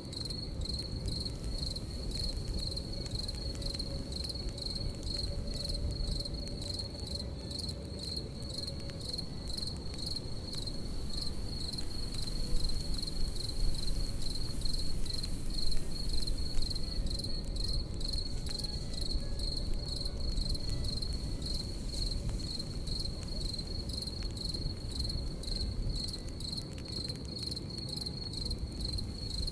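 Crickets chirping in a steady, high, pulsing trill over a crackling campfire with a low rumble. Some louder pops from the fire come around the middle.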